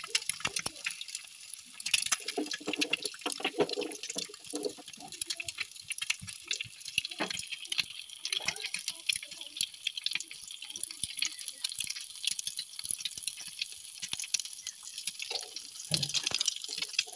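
Quail eggs frying in coconut oil in a small nonstick pan, sizzling with a steady dense crackle. There is a soft low knock near the end.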